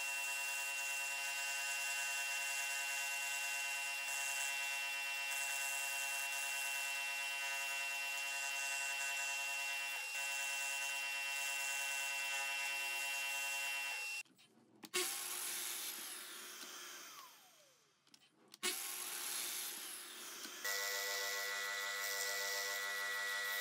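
Scroll saw running at a steady speed, its reciprocating blade giving a steady pitched buzz as it cuts wood. About halfway through, the buzz breaks off and fades with a falling pitch. Near the end the saw runs steadily again at a lower pitch.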